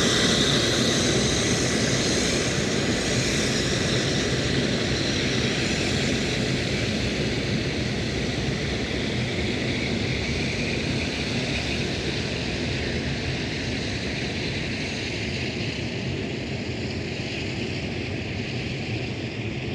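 Rolls-Royce RB211 turbofan engines of a Lockheed L-1011 TriStar running at taxi power: a steady jet rumble with a high whine, slowly fading as the airliner rolls past and away.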